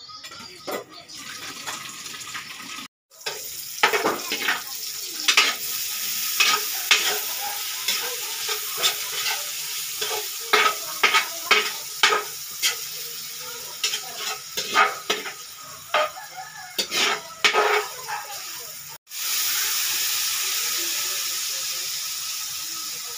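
Diced meat sizzling as it fries in a large steel wok, with a metal ladle scraping and stirring against the pan in repeated irregular strokes. The sound breaks off briefly twice, and in the last few seconds the stirring stops, leaving a steady, louder sizzle.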